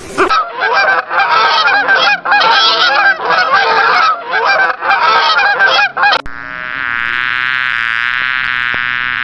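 A flock of farm waterfowl calling with rapid, overlapping honks for about six seconds. Then a steady, even-pitched buzzing tone takes over.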